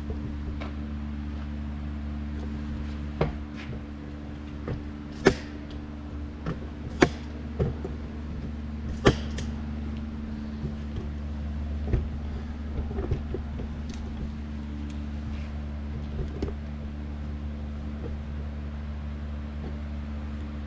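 Scattered sharp clicks and knocks of parts and tools being handled, the loudest about five, seven and nine seconds in, over a steady low machine hum with a few held tones.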